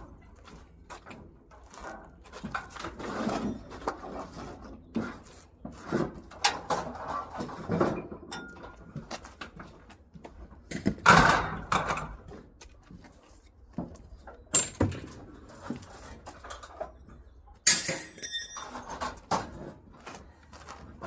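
Objects being handled and shifted: irregular knocks, rustling and scraping, with a loud scrape about eleven seconds in and a sharp metallic clang that rings briefly near eighteen seconds.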